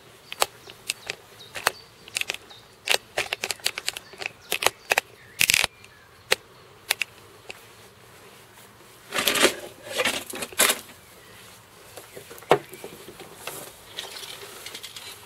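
Camera handling noise: a run of sharp clicks and knocks as the camera is moved and set in place, then a denser stretch of rustling and knocking about nine seconds in as a person settles onto a garden swing bench.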